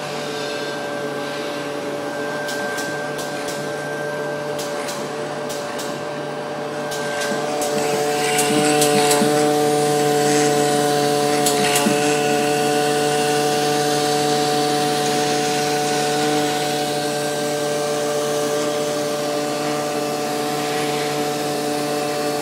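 DRD-Rubber rubber-cutting machine for cutting-die rubber running, with a steady mechanical whine of several held tones over a low hum. A run of light clicks comes early, and about 8 seconds in it grows louder as new tones join.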